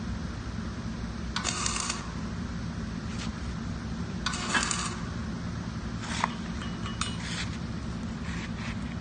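Several short bursts of metal scraping and clinking, with a few sharp taps among them, as hand tools work on a steel weld practice plate. A steady low electrical hum runs underneath.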